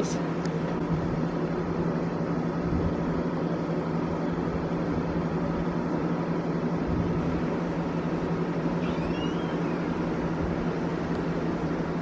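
Steady low mechanical hum over a constant rumbling noise, with a faint high chirp about nine seconds in.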